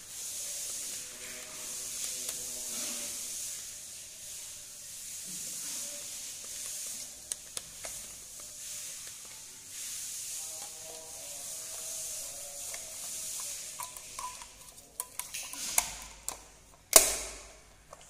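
Screwdriver turning and scraping in the terminal screws of a wall light switch, a steady rubbing hiss. A few light clicks follow near the end, then one sharp plastic knock as the switch is handled against the wall box.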